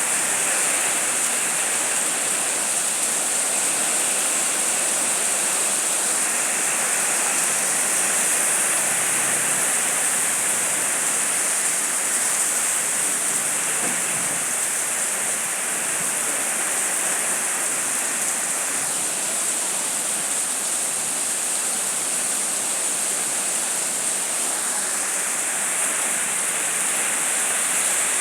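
Heavy rain pouring steadily: a dense, even hiss of rainfall that holds at the same level throughout.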